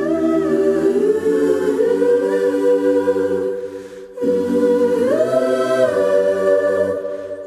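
Choir singing long held notes that glide slowly from pitch to pitch, with a short break about four seconds in.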